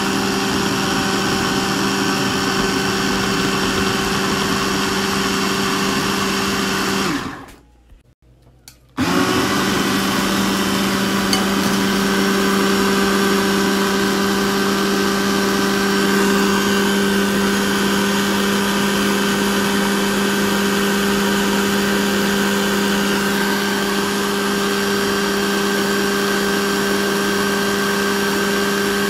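A 600-watt electric blender's motor runs at a steady pitch, blending watermelon chunks with milk into a smoothie. It stops for about two seconds around seven seconds in, then starts again and runs steadily.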